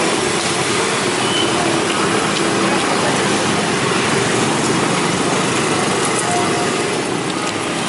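Steady din of road traffic, a continuous hiss over a low engine hum from passing vehicles.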